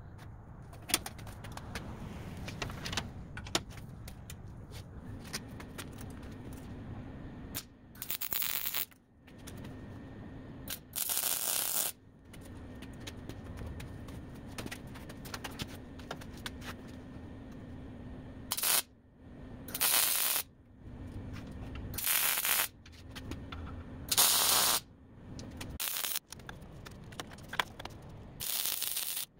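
Arc welding on steel, laid down in short welds: about six bursts of crackling hiss, each lasting about half a second to a second. Between them there is a steady low hum.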